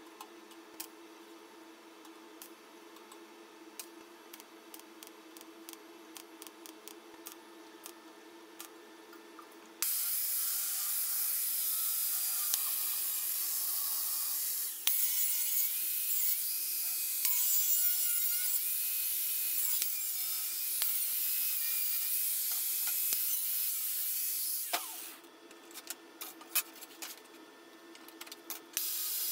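An angle grinder grinds the welded steel body of a rocket stove. It starts about ten seconds in and runs for about fifteen seconds with a wavering whine as the load changes, then cuts off. Before and after it come light clicks and clatter of steel parts being handled, over a low steady hum.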